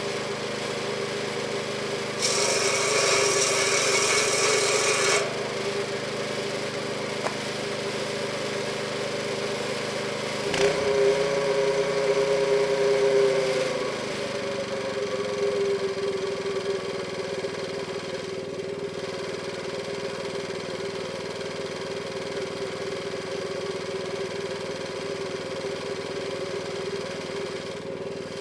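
Circular saw bench driven by a Honda-type single-cylinder petrol engine, running steadily; about two seconds in, the blade cuts through a piece of log for about three seconds with a louder, hissing rasp. About ten seconds in, after a knock, the engine runs faster and louder for a few seconds, then slows down to a lower, steady speed.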